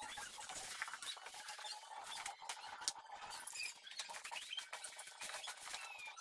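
A hand kneading and stirring a wet mash of mashed banana and rice bran in a plastic bucket: faint, busy patter and small squeaks.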